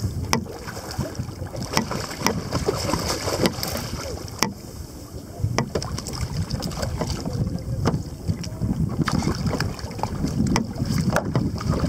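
Wind buffeting the microphone over water lapping against a kayak, with sharp irregular clicks every second or two.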